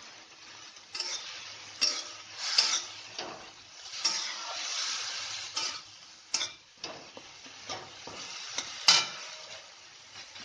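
A flat metal spatula stirring and scraping chopped tomatoes frying in a metal kadai, with sharp clicks and scrapes against the pan at irregular intervals, the loudest near the end, over a steady sizzle.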